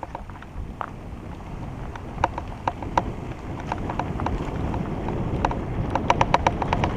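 Hardtail mountain bike rolling fast down a bumpy grass trail: a rising rumble of wind and tyre noise on the helmet microphone as the bike gathers speed, with sharp clicks and rattles from the bike over bumps that come thicker near the end.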